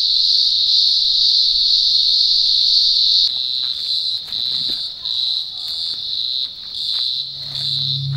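Loud chorus of cicadas: a steady high-pitched buzz that, about three seconds in, turns into a pulsing buzz rising and falling in quick regular waves. A few faint clicks sit under it, and a low music note comes in near the end.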